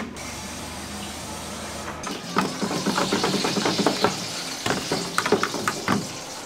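Food-stall cooking sounds: a low steady hum, then from about two seconds in a steady hiss with many small clicks and knocks of utensils and food being handled.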